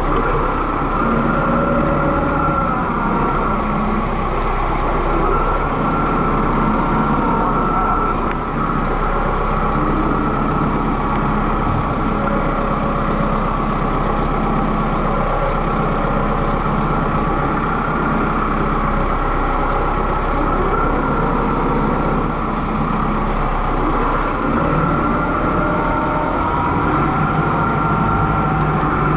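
Kubota M6060 tractor's four-cylinder diesel engine running steadily while the tractor is driven, heard from the operator's seat. Faint whining tones waver up and down in pitch over the engine.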